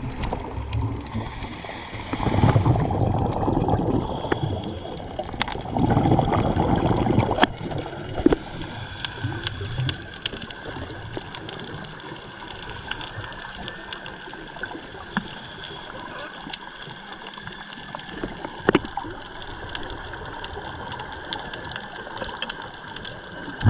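Sea water sloshing and gurgling, with louder surges about two and six seconds in and scattered sharp clicks.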